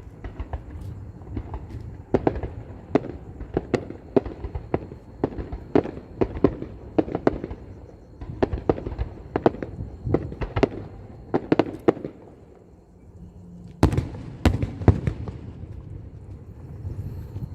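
Fireworks going off in a fast, irregular string of sharp bangs over a low rumble. The bangs pause for a moment past the middle, then come back as a tight cluster of the loudest bangs.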